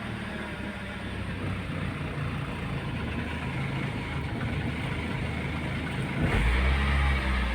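Toyota RAV4 engine idling steadily, running after starting on a newly fitted starter motor. From about six seconds in it gets louder and deeper.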